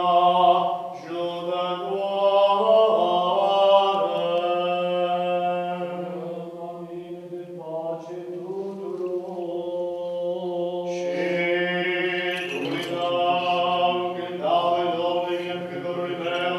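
Eastern Orthodox liturgical chanting: a solo voice singing long, drawn-out melodic phrases that slide between notes, with short breaths between phrases, over a steady low drone.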